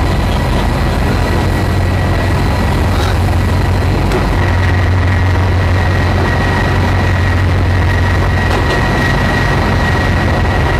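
Steady low drone of ship engines and machinery, with a thin, steady high whine over it.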